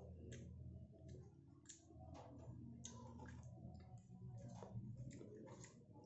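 Faint, irregular clicks and ticks of eating: chewing and a plastic fork picking spaghetti from a cardboard takeout box, over a low steady hum.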